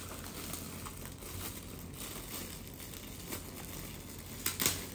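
Gold metallic foil gift wrap crinkling and rustling as hands unwrap a parcel. A couple of sharper, louder crackles come near the end.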